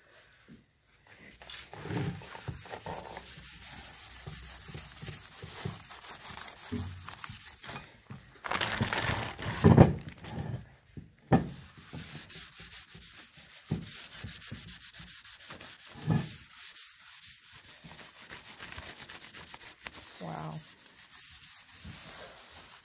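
Steady scraping and rubbing on the cast iron coffin, with a louder, harsher stretch about nine seconds in and a few short knocks.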